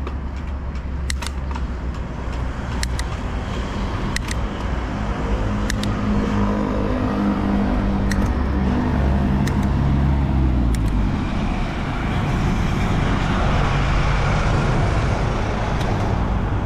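Road traffic: a motor vehicle's engine running and changing pitch through the middle, over a steady low rumble, with a few sharp clicks in the first few seconds.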